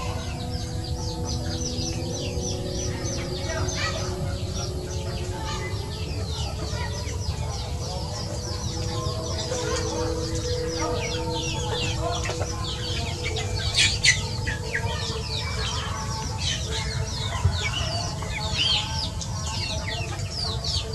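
A flock of young chickens foraging, with a steady stream of short, high, falling peeps and some clucking. One louder, sharper call comes about two-thirds of the way through.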